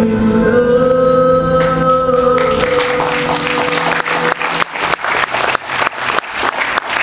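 Music of long held notes, which gives way about two and a half seconds in to an audience applauding. The applause grows and fills the rest.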